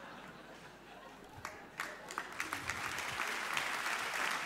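Live audience clapping: a few scattered claps about a second and a half in, building into steady applause.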